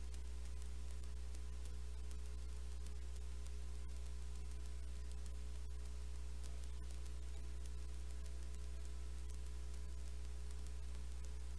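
Steady electrical hum with its overtones and a faint hiss, unchanging throughout.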